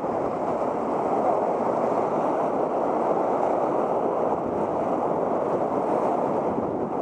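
Whitewater rapids rushing steadily around a raft, a continuous churning of fast water.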